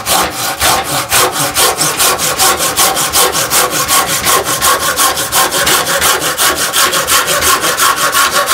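Silky Sugoi 360 mm Japanese pull saw cutting through a block of wood clamped in a bench vise, in fast, evenly repeated strokes without a break.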